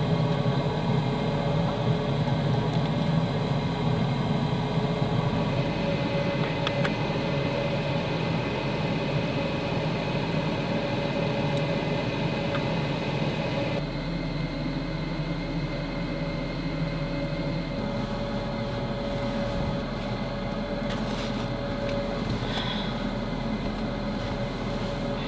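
Steady mechanical hum with a faint held whine, like a small motor or fan running, with a slight change in the background about halfway through.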